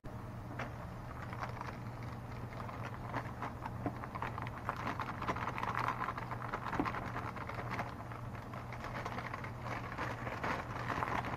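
Dry pancake mix being poured from its crinkling plastic bag into a plastic mixing bowl: a continuous papery rustle and crackle that swells a few seconds in and again near the end, over a steady low hum.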